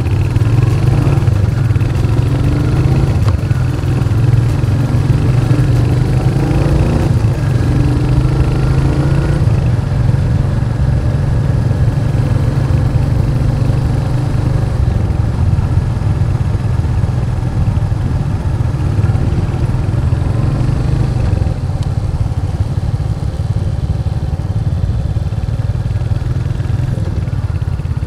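Motorcycle engine running while riding, with a steady drone. Its pitch shifts in the first ten seconds or so, then holds steadier.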